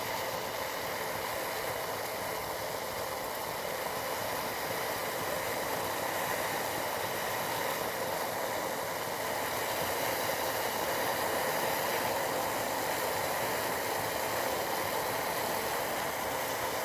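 Tea boiling with a steady bubbling hiss, growing a little louder past the middle.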